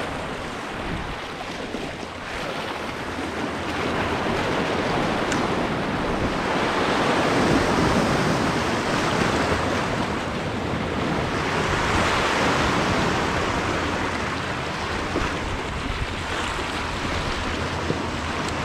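Sea surf washing in and out over a rocky shore ledge: a steady rush of foaming water that swells louder and eases off every few seconds.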